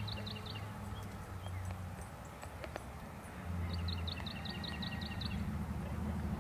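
A songbird sings a quick run of evenly repeated high notes twice, at the start and again about halfway through, over a steady low rumble, with a few soft hoofbeats from a horse moving in a sand round pen.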